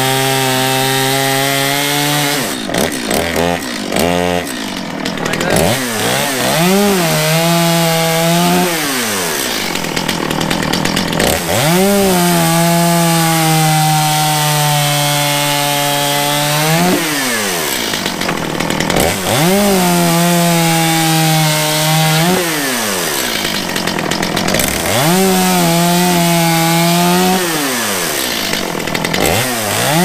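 Chainsaw on a slide rig cutting sawmill slabs into firewood-length pieces. The engine revs up, holds a steady, lower pitch under load through each cut, then drops back as the throttle eases, about five times over.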